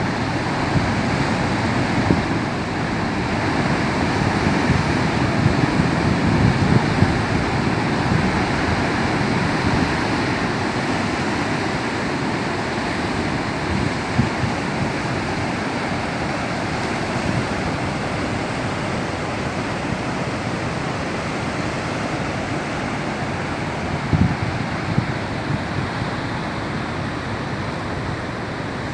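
Rough, choppy sea: waves breaking and surging against the coast in a continuous wash of surf, swelling louder over the first several seconds. A few brief low thumps come near the end.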